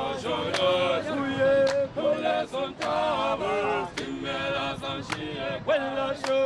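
Male voices singing together in harmony, choir-style, with sharp percussive hits every half second to a second.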